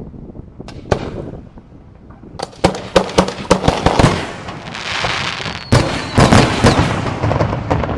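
An aerial fireworks display: a single sharp bang about a second in, then rapid volleys of loud bursts with crackling between them, building to a dense barrage in the second half.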